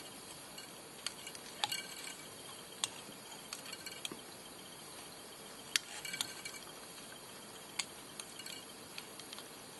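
Scattered light clicks and ticks of a wire whip-finish tool being turned while tying the final knot at a fly's head, over a low steady hiss.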